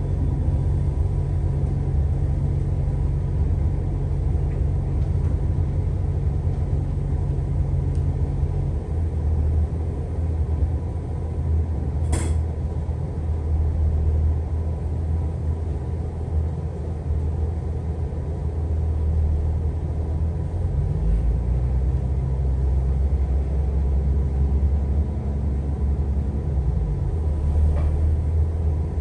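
Inside an Irish Rail Class 22000 InterCity diesel railcar on the move: the low, steady drone of its underfloor diesel engines and running gear, the engine note changing a couple of times. A single sharp click about twelve seconds in.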